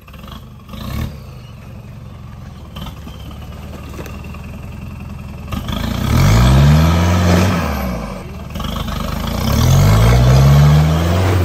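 Red Nissan Big-M pickup's diesel engine running at low revs as the truck crawls over rough ground. It is then revved hard twice under load, about six seconds in and again near ten seconds, rising and falling in pitch each time as it pushes the truck up out of a rut, with black smoke at the exhaust.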